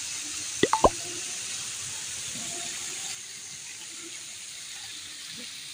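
Steady hissing riverside ambience, the sound of the flowing river, which drops a little about three seconds in. Just under a second in there are three short, sharp high chirps or clicks close together.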